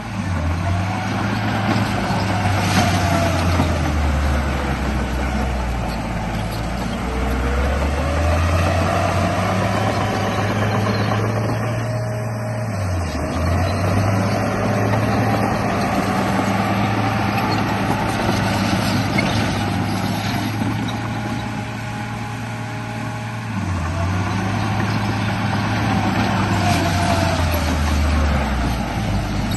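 Radio-controlled bulldozer running, with a low diesel-like engine drone that steps up and down in pitch and a motor whine that rises and falls as it drives.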